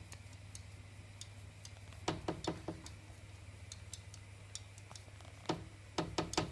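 Irregular light clicks and knocks, in a cluster about two seconds in and another near the end, with faint ticking between, over a low steady hum.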